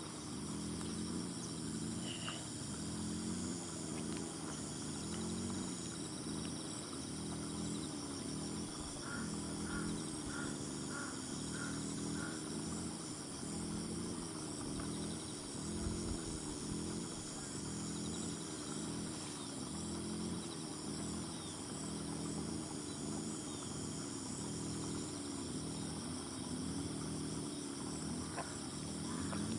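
Steady chorus of insects such as crickets, with high continuous trilling over a low, evenly pulsing chorus that repeats about once a second. A short run of about seven evenly spaced calls comes through around ten seconds in.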